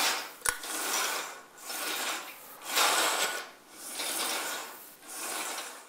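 Curtain carriers rolling along a T60 curtain track as the handline cord is pulled through its pulleys, a rasping run that comes in repeated pulls about a second apart, with a sharp click about half a second in.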